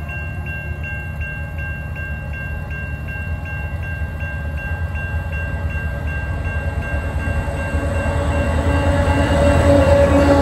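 Level-crossing bell ringing in a quick steady rhythm, about three strikes a second, while the low rumble of approaching diesel locomotives grows steadily louder. Near the end the lead locomotive comes up to the crossing, and its engine covers the bell.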